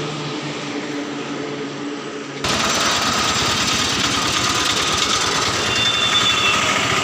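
An engine running with a steady low hum; about two and a half seconds in, the sound cuts abruptly to a louder, fast mechanical rattle.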